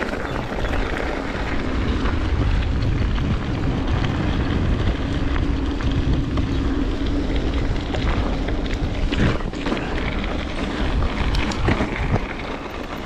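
Wind rushing over the microphone of a handlebar-mounted camera on a moving mountain bike: a steady low rumble, with the tyres rolling on gravel and a few short clicks from the bike.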